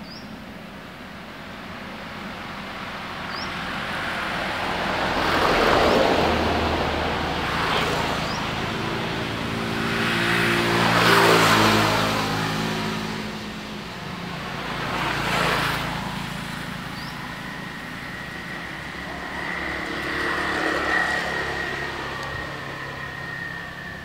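Motor vehicles passing one after another, each swelling and fading. The loudest passes about halfway through, its engine note dropping in pitch as it goes by. A thin, steady high whine runs through the last third.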